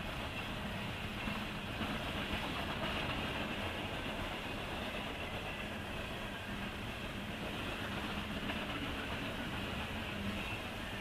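Norfolk Southern freight train rolling past, a steady rumble of wheels on the rails.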